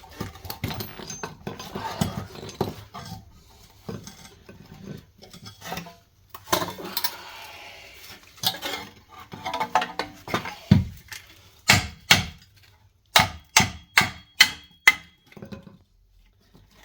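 Metal hand tools and suspension parts clanking and knocking together, then a run of about six sharp metallic strikes, roughly three a second, with a faint ring.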